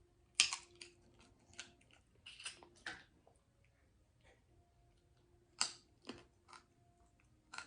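Close-miked eating of seafood: an irregular string of short wet smacks and crunches from chewing and handling the food, with a louder crunch about half a second in and another a little past the middle.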